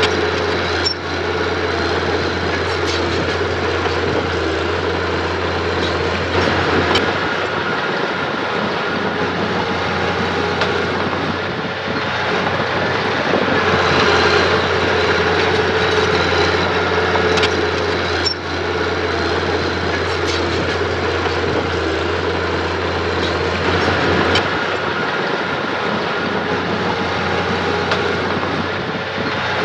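Engine of heavy earthmoving machinery running steadily under work, with a few sharp metallic knocks now and then.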